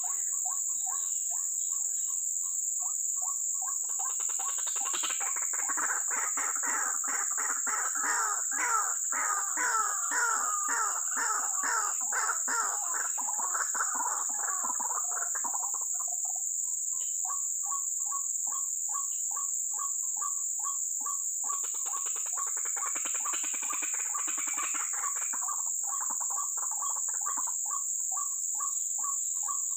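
White-breasted waterhen calls: a steady run of short notes about three a second, broken twice by longer, louder bouts of calling. A constant high insect drone runs beneath.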